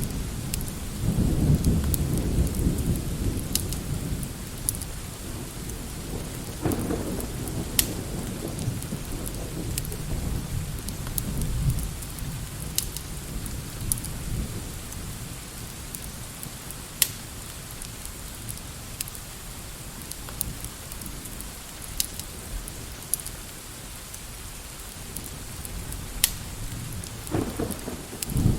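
Steady rain with rolling thunder, the rumbles heaviest in the first few seconds, again about seven seconds in, and near the end. Over it, a fireplace crackles now and then with sharp single pops.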